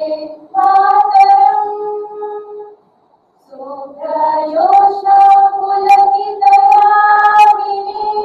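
A group of young women singing slowly in unison, with long held notes. The singing breaks off for about a second a little before the middle, then resumes with a rising note into long sustained tones.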